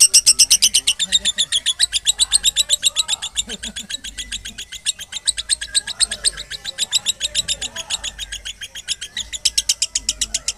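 Female lovebird chattering non-stop in one long, rapid run of high chirps, about eight a second: the unbroken 'konslet' chatter prized in lovebird contests.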